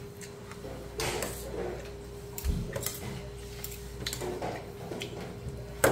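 Quiet table sounds of a meal: a few scattered clicks of metal chopsticks against dishes, over a faint steady hum.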